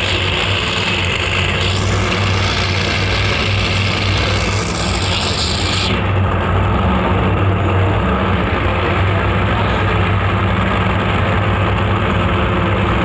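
Alcohol-burning drag car engines running at the starting line, a steady deep rumble. A loud hiss sits over it for the first six seconds, then cuts off.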